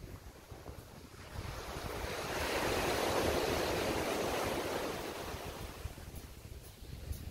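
A sea wave breaking and washing up the beach: a rush of surf that swells from about a second in, is loudest around three to four seconds, and dies away near the end. Wind buffets the microphone with a low rumble throughout.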